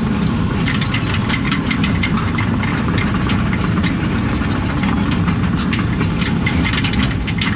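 Diesel engine of heavy construction equipment running steadily, with frequent sharp clicks and knocks over it.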